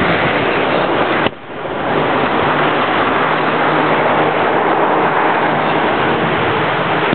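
Aerial fireworks bursting overhead: a dense, continuous din of booms and crackle, with a sharp bang about a second in after which the sound briefly drops away before building again.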